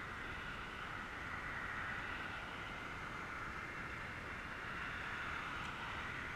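Road traffic passing: a steady hiss of tyres and engines from cars going by, swelling slightly and easing off.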